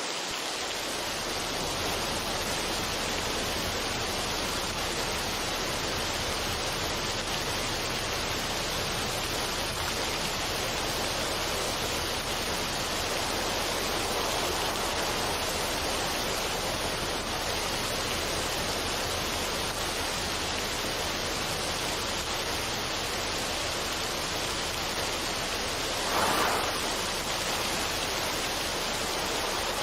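Steady, even rushing noise, with a brief dip in level right at the start and a short swell about 26 seconds in.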